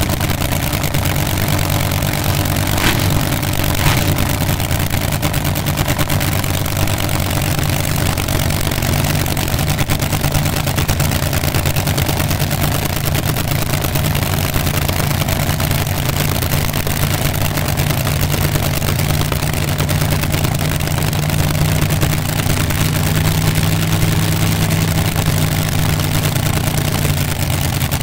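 Supercharged, nitro-burning front-engine dragster engines idling at a cacklefest: a loud, steady, crackling idle over a deep drone.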